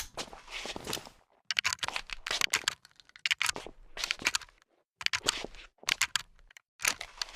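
Rochester 1873 rifle sound effects: a sharp crack at the very start, then a run of metallic clicks and clacks in short clusters about once a second, the handling and reloading noises of the gun.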